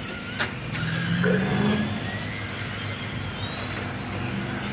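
Brushed electric RC touring cars racing, their motors whining and rising in pitch as they accelerate. Two sharp clicks come in the first second.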